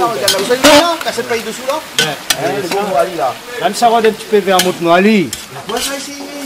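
A metal ladle scraping and knocking against a large pan of duck pieces frying in oil with onions, with sizzling under it; people's voices talk over it.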